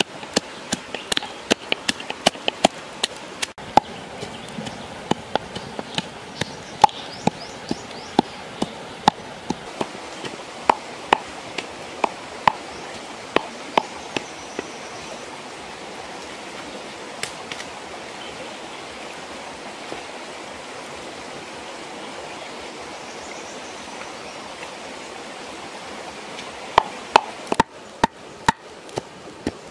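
Stone pestle pounding in a clay mortar, a quick run of sharp knocks crushing garlic and chillies, over the steady rush of a stream. The knocks thin out past the middle, leaving only the stream for a while, and a short burst of knocks returns near the end.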